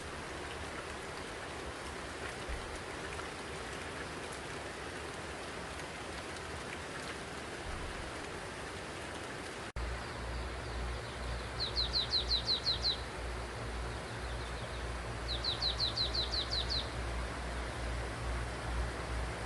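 Steady patter of spring rain. After an abrupt cut about halfway through, a low rumble sits under the rain and a small bird sings twice, each a quick trill of about eight high notes.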